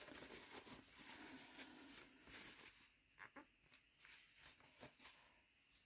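Near silence: quiet room tone with a few faint small clicks, a little after halfway through and again near the end.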